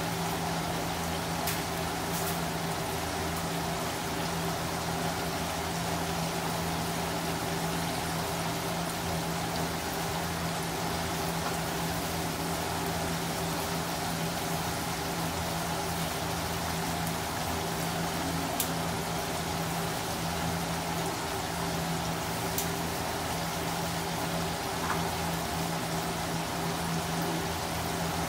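Whole fish deep-frying in hot oil: a steady, dense sizzle of bubbling oil with a few faint pops, over a steady low hum.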